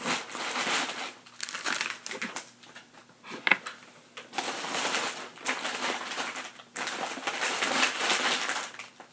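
Plastic candy packaging crinkling and rustling in bursts as packages are pushed down into a woven Easter basket, with a sharp click about three and a half seconds in.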